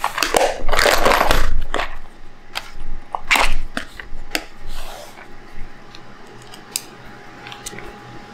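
Small metal precision screwdriver bits clattering and clicking as they are handled in their case and fitted to the driver. A loud rattling rush lasts about two seconds, followed by scattered sharp clicks.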